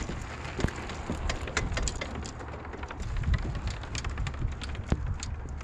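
Beach fishing cart with big orange wheels rolling over wooden boardwalk planks, with footsteps: a steady low rumble scattered with irregular clicks and knocks.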